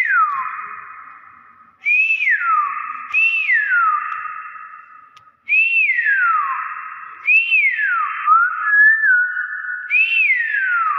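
Nias hill myna giving loud whistles, about six in a row, each sliding quickly down in pitch, with a short wavering note between the last two.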